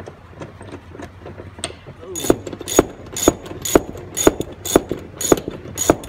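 Socket ratchet wrench tightening a seat belt anchor bolt. From about two seconds in, sharp ratcheting clicks come about twice a second as the handle is swung back and forth, after fainter handling clicks.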